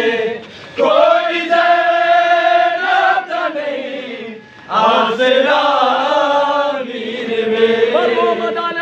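Male voice chanting a noha, a Shia Muharram lament, in long drawn-out melodic phrases, with two short breaks for breath.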